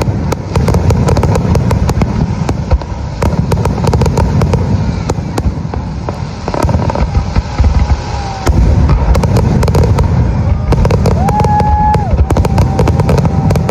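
Fireworks going off nonstop: dense, rapid crackling over a heavy low rumble. A few brief steady tones sound over them in the second half.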